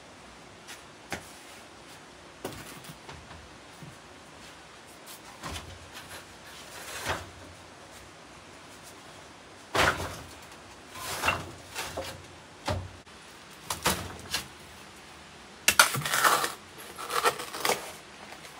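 Irregular knocks, clacks and clatters of objects being handled and set down, with a louder cluster of clatters near the end.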